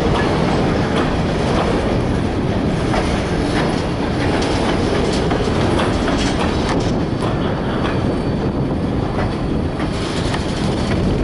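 A freight train's cars rolling steadily past, with a continuous rumble of steel wheels on rail and irregular clicks as the wheels cross rail joints.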